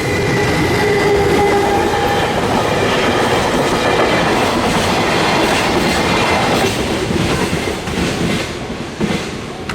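A JR Chuo Line train passing over the level crossing at close range, loud and steady, dying away near the end.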